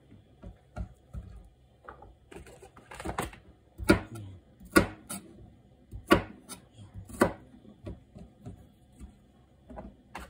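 Kitchen knife chopping boiled bamboo shoots on a cutting board: sharp knocks of the blade hitting the board, about ten at an uneven pace.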